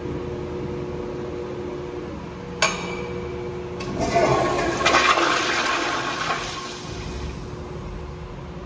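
Toto CT705 flush-valve toilet flushing: a sharp click about two and a half seconds in, then a loud rush of water into the bowl that peaks for a couple of seconds and fades away.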